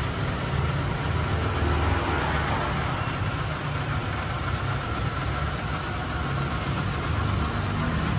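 A steady low engine rumble runs without a break, with a faint thin whine above it.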